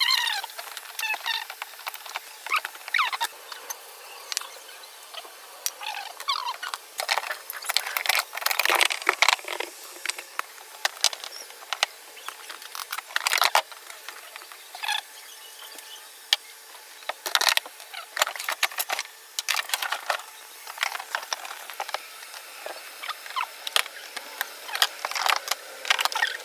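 Hand tools clicking, knocking and scraping at irregular intervals while the motor of a twin-tub washing machine is being unbolted, with a few short squeaks in the first seconds.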